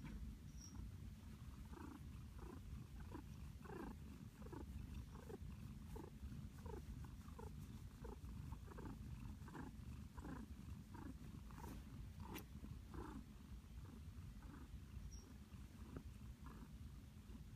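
Domestic calico cat purring steadily and softly while being stroked, a contented purr with a regular pulse about twice a second.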